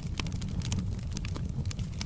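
Wood fire in a fireplace crackling, with irregular sharp pops and snaps several times a second over a steady low rumble of the burning.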